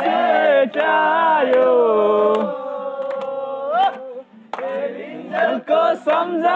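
Group of people singing an old Nepali song without instruments, with long held notes and a short break about four seconds in before the singing picks up again. A few hand claps come through.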